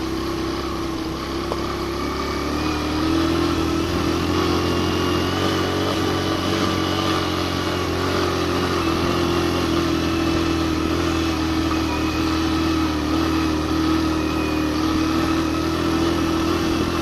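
Suzuki GN 125's single-cylinder four-stroke engine pulling under load in first gear up a steep climb with a passenger, at over 3,000 m altitude, where the thin air saps its power. The engine note rises slightly about two to three seconds in, then holds steady with small wavers in pitch.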